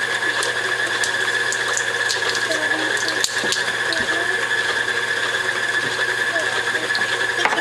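Electric stand mixer running steadily, its motor and gears giving a constant whine over a low hum, with a few faint clicks.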